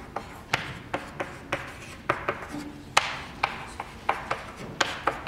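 Chalk writing on a blackboard: an irregular run of sharp taps and short scratches as each letter is stroked onto the board.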